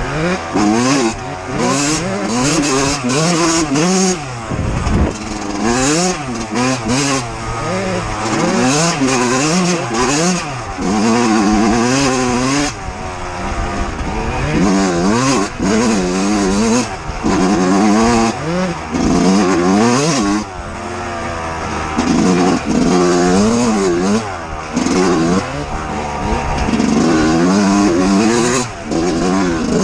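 A 125 cc two-stroke dirt bike ridden off-road, its engine revving up and dropping back again and again, about once every second or two.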